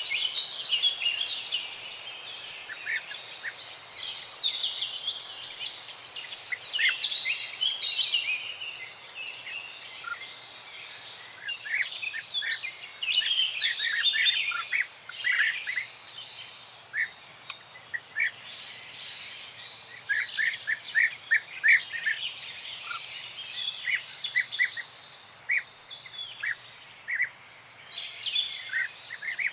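Many small birds chirping and singing at once: a dense, overlapping chorus of high calls with runs of short, quick notes.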